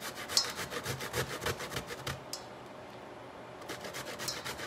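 Raw cassava root being grated on a stainless steel box grater: quick, even scraping strokes, about six a second, with a pause of about a second midway before the strokes start again.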